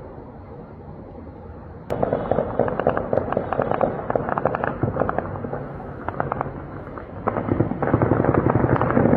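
Heavy automatic gunfire: long rapid bursts of shots overlapping into an almost continuous crackle. It starts abruptly about two seconds in and gets louder and denser near the end.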